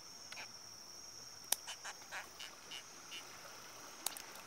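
Steady high-pitched drone of insects, with two sharp clicks, one about a second and a half in and one near the end, and a short run of quick high chirps in between.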